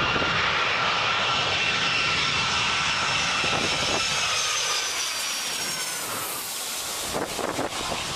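Aircraft engine passing close, a loud roar with a high whine whose pitch slowly falls as the plane goes by.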